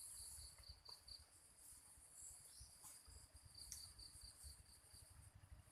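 Faint, steady chorus of insects chirring: a continuous high trill with pulsing notes, over a low rumble.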